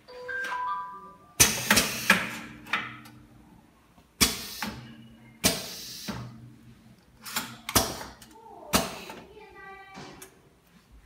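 Pneumatic urinal block wrapping machine cycling under hand operation: its air cylinders actuate in a series of about nine short, sharp bursts of released air and clacks, irregularly spaced.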